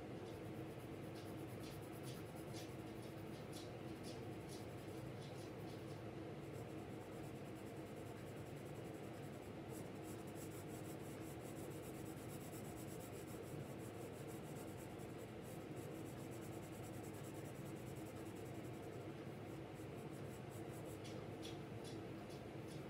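Graphite pencil shading on drawing paper: quick back-and-forth strokes of a Ticonderoga pencil scratching softly, coming in spells, over a steady low hum.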